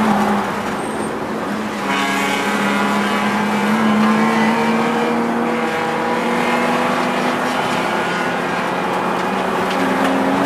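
BMW E36 race car's straight-six engine heard from inside the cabin, eased off briefly and then back on the throttle about two seconds in, the revs climbing as the car accelerates out of the corner, with a step in pitch near the end.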